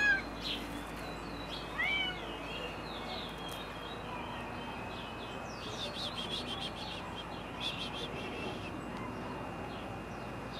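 A Turkish Angora cat giving short meows in the first two seconds, with small birds chirping throughout.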